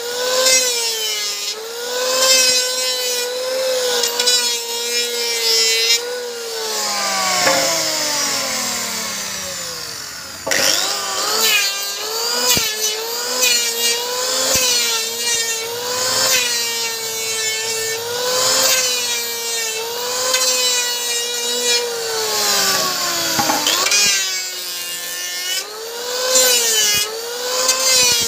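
Electric hand planer running on wood, its motor whine sagging and recovering in repeated humps as the cutter takes passes. About six seconds in it winds down over a few seconds, then starts up again sharply near ten seconds in, with another brief dip near the end.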